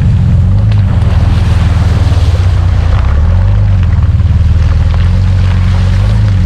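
Jeep Wrangler running, heard as a steady low engine and road rumble from inside the vehicle.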